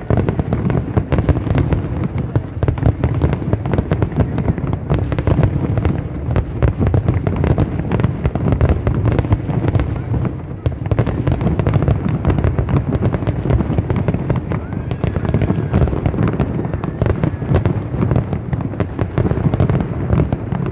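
Large aerial fireworks display: a dense, continuous barrage of shell bursts, many bangs a second, with a short lull about halfway through.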